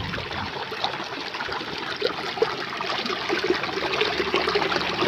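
Water trickling and babbling along a small irrigation channel, heard with the microphone close to the water's surface: a steady rush with small irregular splashes.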